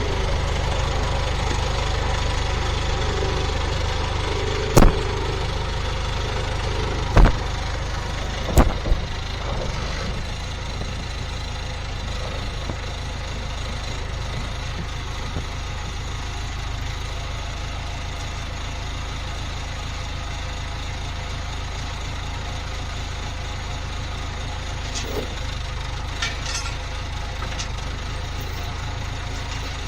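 Case 1840 skid steer's diesel engine running steadily, slightly quieter after the first ten seconds. Three loud sharp metallic bangs come in the first nine seconds, a couple of seconds apart.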